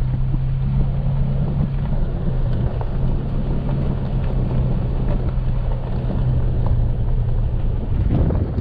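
Pickup truck driving on an unpaved forest road, heard from inside the cab: a steady low engine hum under tyre and road noise, with scattered small knocks and rattles.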